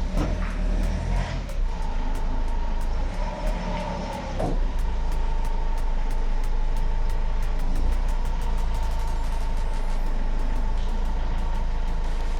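Workshop car lift raising a car, its electric motor settling into a steady hum about four and a half seconds in, with a run of light clicks over it.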